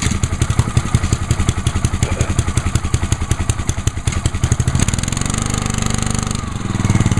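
Honda GCV190 engine on a gas pressure washer starting from a pull of the recoil starter and running on choke, a cold start after months unused. It runs with a pulsing beat that evens out about five seconds in, then grows louder near the end.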